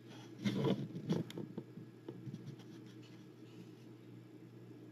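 Light handling noise of small wooden model-ship parts being fitted by hand: a cluster of soft taps and rustles in the first second or so, then a few faint clicks, over a low steady hum.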